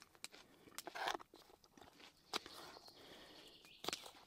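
Faint crunching of fresh vegetables, with scattered sharp clicks and soft rustling as the food is handled.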